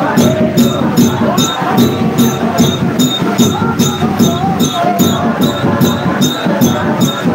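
Congregation singing a lively church hymn over a steady, quick percussion beat of sharp, jingly strikes about three a second.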